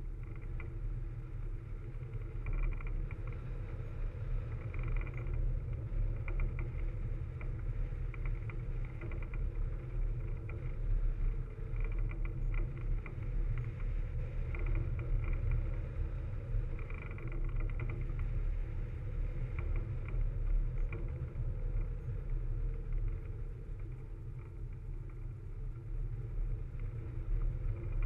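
Wind rushing over a wing-mounted camera on a hang glider in flight: a steady low rumble, with patches of higher fluttering noise coming and going.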